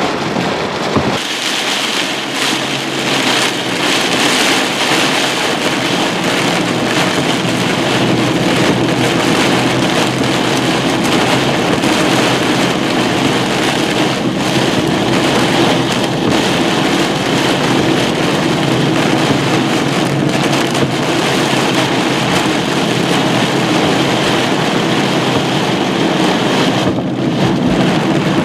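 Heavy rain beating steadily on a car's windshield and roof, heard from inside the car during a severe thunderstorm downpour. About a second in, the sound changes from gusty wind to this steady rain.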